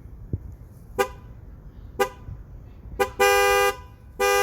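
Car horn sounding a two-note tone: two short taps about a second apart, then a longer blast of about half a second, and another blast starting just before the end.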